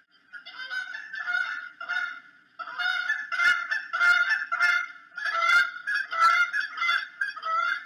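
Bald eagle calling: a series of high, chirping notes. A few spaced calls come first, then after a short pause a faster run of about three notes a second.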